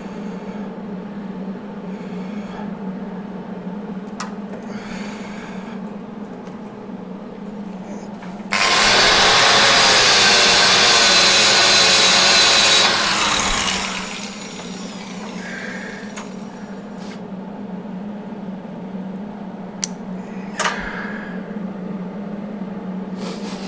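A handheld rotary power tool runs at full speed for about four seconds, then spins down, over a steady electrical hum.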